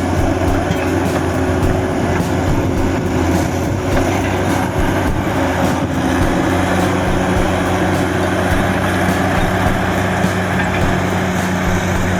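An engine running steadily, a constant hum that holds one pitch without revving.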